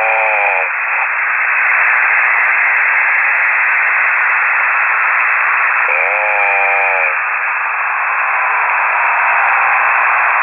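Single-sideband amateur-radio signal heard through a KiwiSDR receiver: a steady hiss with two short, pitched snores about six seconds apart, one right at the start and one about six seconds in. A ham operator is snoring over the air.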